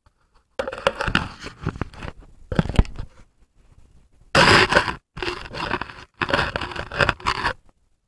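Camera scraping and scratching against ice as it is handled and set in place, in four rough bursts, the loudest a little past the middle.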